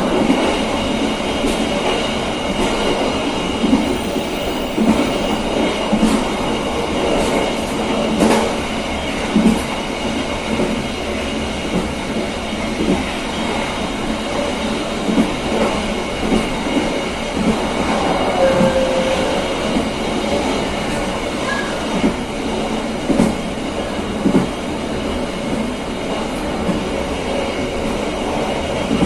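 Passenger train running at speed: a steady rumble of wheels on rail with irregular knocks and clacks from the track, and a short wheel squeal about two-thirds of the way through.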